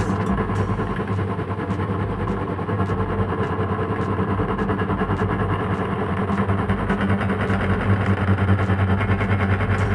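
Electric meat grinder running with a steady motor hum as it grinds Oreo cookies.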